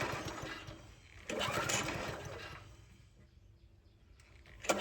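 Garden tiller's small gasoline engine cranked twice on its pull starter, each pull a rattling run of quick pulses about a second and a half long, without the engine catching.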